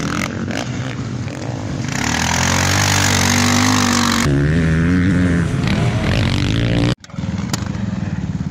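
Sidecar motocross outfits' engines revving hard on the dirt track, pitch climbing and jumping with throttle and gear changes. The sound drops out abruptly for an instant about seven seconds in, then another outfit's engine comes in close by.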